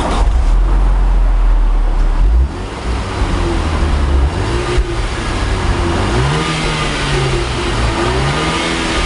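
Audi A4 Avant 2.0 TFSI quattro's turbocharged four-cylinder engine heard through a Kakimoto einsatz aftermarket exhaust. It runs with a steady low note at first, then from about two and a half seconds in it is revved several times, the pitch rising and falling with each rev.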